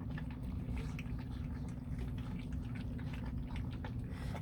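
Bluetick coonhound puppies lapping and slurping food from a shared dish, a quick, uneven run of small wet clicks, over a steady low hum.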